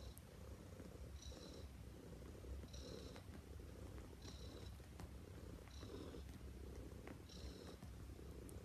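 Neva Masquerade cat purring softly, the purr swelling and fading with each breath about every second and a half, while she kneads the duvet.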